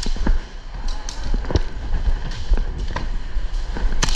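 Airsoft guns firing: scattered single sharp pops and BB hits in the first few seconds, then a quick string of about half a dozen shots near the end.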